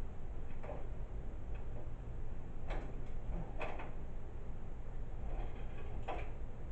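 A few short knocks and scrapes of parts being handled inside a desktop computer case while the power supply is held aside, over a steady low hum.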